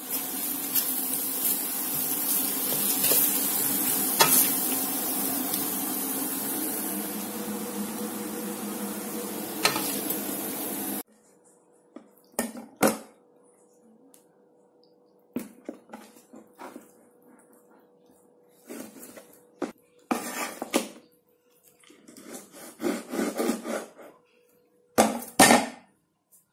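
Chicken and bok choy sizzling in a wok, a steady loud hiss with a couple of sharp clanks from the spatula on the metal. About eleven seconds in it cuts off abruptly to near quiet: a faint steady hum with scattered knocks and rustles as raw chicken is handled and set down on a cutting board.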